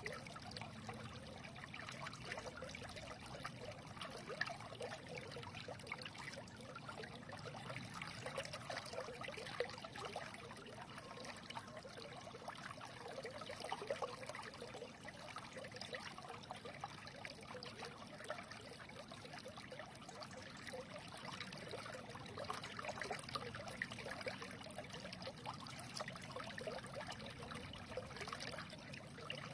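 A small stream running and trickling, a steady babble of water with small splashes and gurgles.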